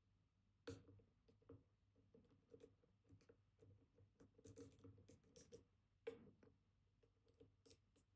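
Faint, irregular clicks and light scratches of a dimple pick working the pins of a Kaba Titan Combi high-security dimple lock, with two sharper clicks about a second in and near the end.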